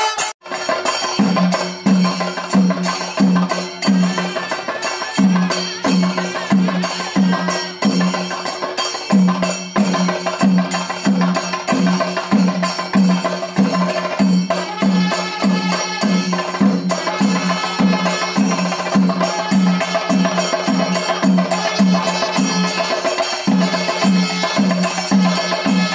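Traditional Kerala temple percussion ensemble: drums beating a steady rhythm of about two strokes a second, with cymbals clashing and ringing over them.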